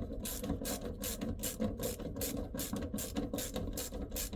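Ratchet wrench clicking in a steady rhythm, about three clicks a second, as it turns the small 7 mm bolts of a van's fuel tank sender unit.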